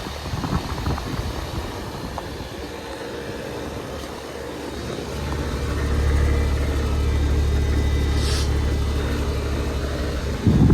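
Kelvinator air conditioner running with a mechanical rumble; about five seconds in, a steady low hum comes in and grows louder, and near the end there is a short loud thump.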